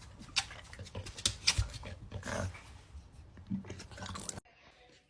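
A dog making a run of irregular sharp clicks and short noisy sounds, cutting off suddenly about four seconds in.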